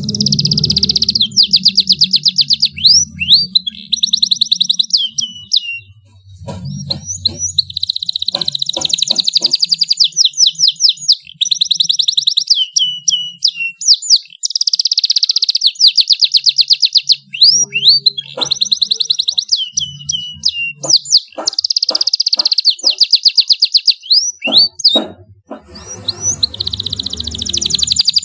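Domestic canary singing loud, long phrases of rapid trills and fast repeated chirps, broken by a few short pauses.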